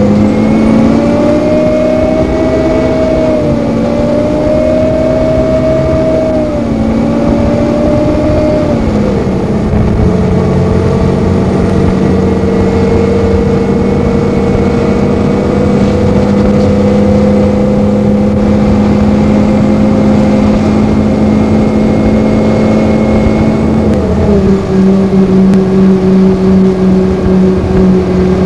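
2002 NABI 40-LFW transit bus dominated by the whine of its cooling fan, with the Detroit Diesel Series 50 engine barely heard beneath it. The whine climbs in pitch at the start, drops after about nine seconds, holds steady, and steps down a little near the end.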